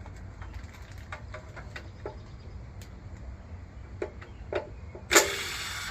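Light metallic clicks and knocks of tools on the engine's oil pan bolts, then near the end a sudden loud burst of about three quarters of a second from a power driver spinning a bolt off.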